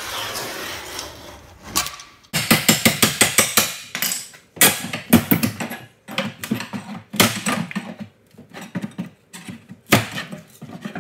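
A metal knife scraping along the caulk seam of a laminate countertop, then a metal prying tool clattering against the countertop edge in quick runs of sharp knocks as the top is worked loose, with one harder knock near the end.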